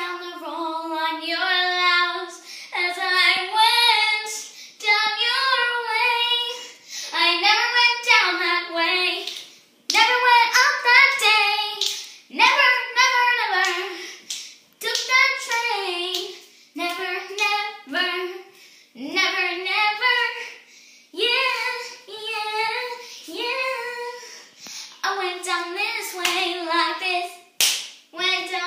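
A young girl singing in a high voice, in short phrases of a second or two with brief pauses, the pitch sliding up and down; a few short knocks fall between phrases.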